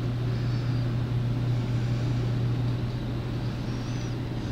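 Steady low-pitched hum with a rumbling noise underneath, unchanging throughout.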